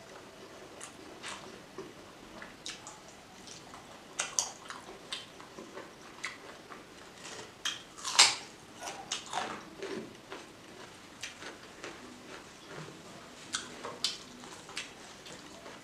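Close-miked eating of pork and rice by hand: wet chewing and mouth smacks with irregular short clicks, the loudest about eight seconds in as a handful goes into the mouth.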